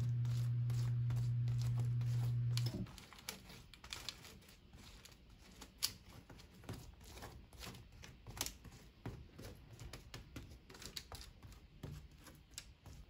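A steady low electrical hum that cuts off suddenly about three seconds in, then soft scrapes and light taps of a spoon spreading sticky pecan praline mixture over graham crackers on a foil-lined baking sheet, with a little foil crinkle.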